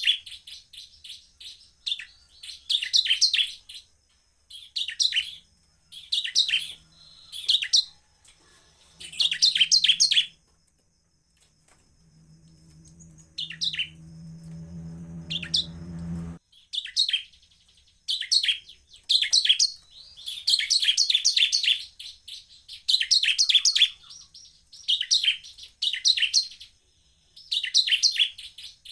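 Bar-winged prinia (ciblek) singing in repeated short bouts of fast, high chattering notes with brief pauses between them. In the middle a low hum swells for a few seconds and cuts off suddenly.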